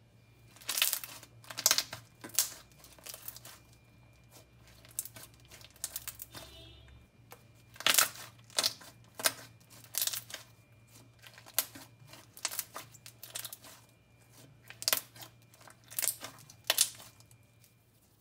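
Thick slime being squeezed and pressed by hand, giving irregular sharp clicks and pops, typical of a clicky slime.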